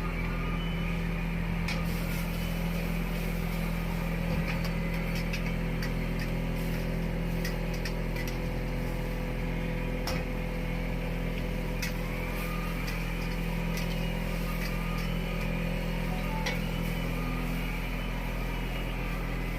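Steady low mechanical hum of a street-stall wok station during stir-frying, with a few sharp metallic clicks of a ladle striking the wok.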